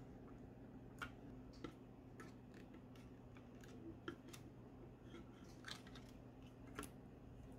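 Faint, scattered clicks and taps of hard plastic toy parts: a small camera and telescope accessory being pressed onto a Robocar Poli Helly transforming robot toy's hands.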